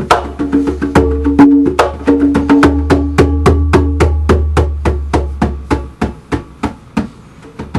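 Fast solo hand-percussion playing, about eight sharp strikes a second over low ringing tones. About six seconds in, the playing drops to softer, sparser strokes.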